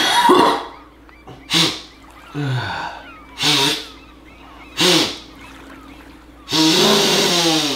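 A man's loud, repeated sniffing and snorting through a stuffed-up nose, about six times; the last is drawn out for about a second near the end. It is the congested sniffling of allergy season.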